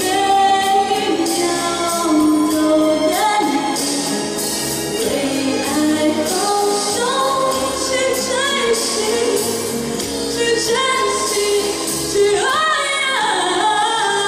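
A woman singing a ballad into a handheld microphone over instrumental accompaniment, holding long notes that glide between pitches and climb to a higher phrase near the end.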